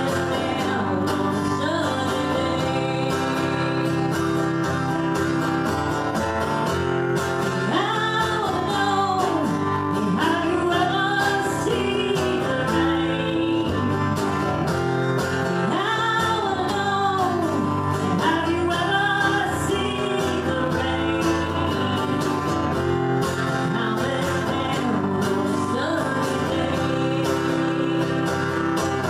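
Country-style song: acoustic guitar strumming steady chords with a singing voice, the sung lines coming in two phrases, about a third and about two-thirds of the way through.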